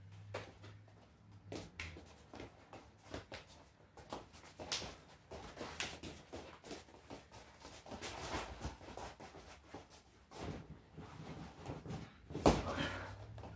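Two wrestlers' footwork and hand-fighting on a vinyl wrestling mat: scattered quick steps, scuffs and slaps, then one loud thud of bodies hitting the mat near the end as one wrestler is taken down.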